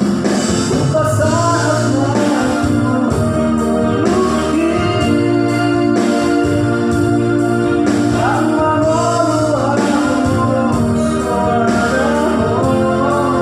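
A person singing a slow song to an electronic keyboard, whose sustained organ-like chords hold steady under the voice.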